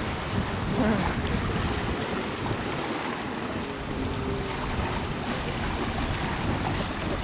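Steady wind buffeting the microphone, a low rushing noise without any clear engine tone.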